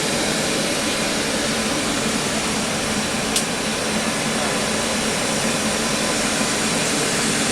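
Automatic double-head circumferential welding machine running with a steady noise, with a single sharp click about three and a half seconds in.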